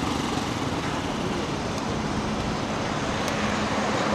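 Steady city street traffic noise: car and engine sound mixed together, with no single event standing out.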